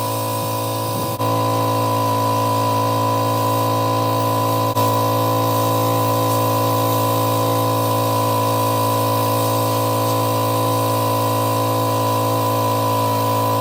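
Pressure washer running steadily, a constant motor drone with a strong tone near 1 kHz, dipping briefly about a second in and again just before five seconds.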